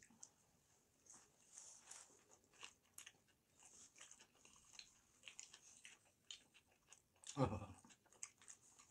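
Faint close-up chewing and biting of soft burger buns, with small wet mouth clicks. A brief louder vocal sound comes about seven and a half seconds in.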